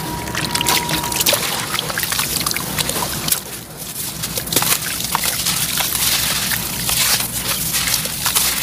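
A soaked sand-cement block being squeezed and crumbled by hand in a basin of water: gritty crunching with many small crackles, and wet sloshing and trickling as the pieces drop back into the water.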